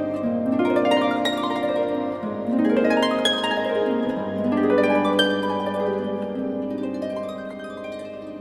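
Solo concert harp playing: plucked notes and flowing arpeggios that ring on and overlap, growing softer toward the end.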